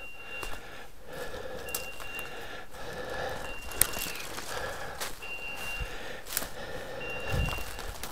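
A hunting dog's beeper collar sounding a short electronic beep about every second and a half to two seconds, over the crunch of footsteps and snapping twigs in dry leaf litter.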